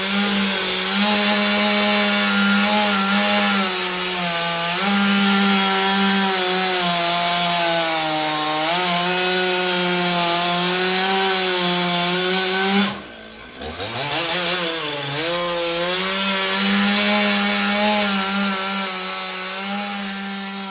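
Chainsaw engine running at high revs, its pitch sagging briefly a few times. About thirteen seconds in it drops off sharply, then revs back up and runs on, fading away near the end.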